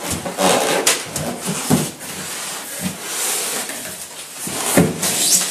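Cardboard box flaps and polystyrene foam packing being handled and pulled about: scraping and rubbing noise with several knocks.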